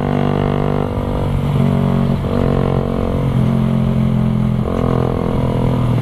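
Suzuki Raider 150 Carb's single-cylinder four-stroke engine running at cruising speed through a Creed aftermarket open exhaust, heard from the rider's seat. The note holds steady, with a few slight dips and rises as the throttle eases and opens again.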